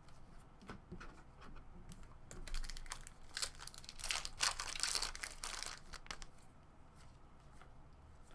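A trading-card pack's foil wrapper being torn open and crinkled. It is a dense crackle that starts about two seconds in and lasts about four seconds, with light ticks of handling before and after.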